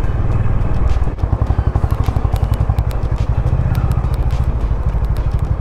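Honda H'ness CB350's single-cylinder engine running at low revs while the motorcycle rolls slowly over a rough dirt road; its even, low exhaust beat turns into distinct separate pulses about a second in. Scattered sharp clicks sound over the top.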